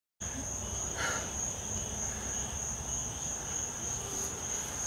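Crickets trilling in a steady, high-pitched drone over a low rumble, cutting in abruptly just after the start.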